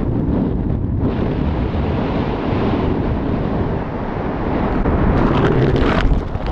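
Wind buffeting the camera microphone as a tandem parachute glides in to land, a steady, loud rush strongest in the bass. Near the end come a few knocks and rustles as the pair touches down and slides on the grass.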